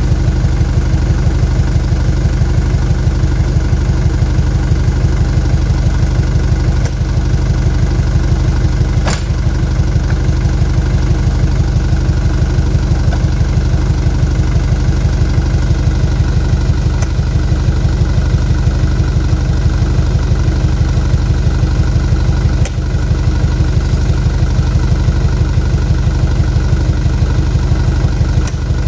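Light lorry's engine idling steadily, with a few sharp knocks over it, the loudest about nine seconds in.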